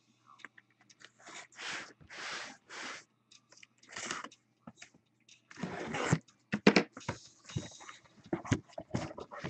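A cardboard shipping case being handled and opened: several separate scrapes and swishes of cardboard, then a quicker run of sharp knocks and taps in the second half.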